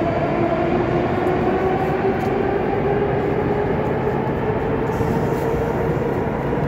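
Metro train accelerating away from the platform. Its traction motors whine in two tones that climb slowly and steadily in pitch over a constant rumble of running gear.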